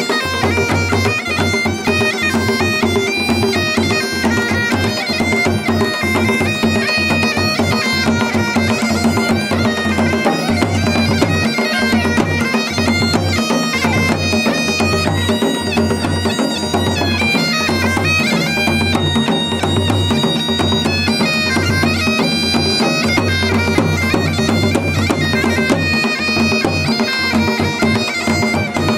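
Masakbeen, the Garhwali bagpipe, playing a folk melody over its steady drones without a break.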